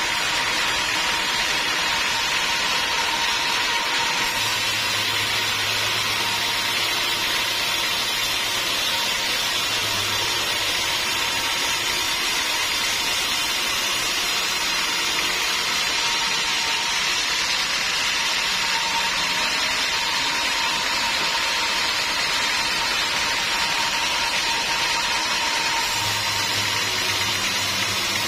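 Band sawmill running steadily, its blade cutting through a teak log, a continuous noisy rush with a steady tone in it. A low hum joins twice, about four seconds in and again near the end.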